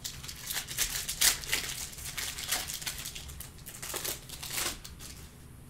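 Foil wrapper of a 2019-20 Panini Mosaic basketball card pack crinkling as it is torn and peeled open by hand: a run of sharp crackles that stops about a second before the end.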